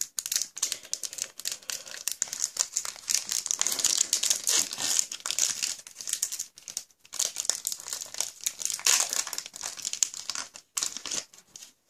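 Foil booster-pack wrapper of Pokémon trading cards crinkling as it is opened by hand, a dense run of crackles that thins out near the end.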